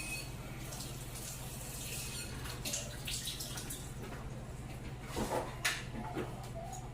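Water running and splashing at a kitchen sink as something is rinsed off under the tap, over a steady low hum. A few knocks and clatters come near the end.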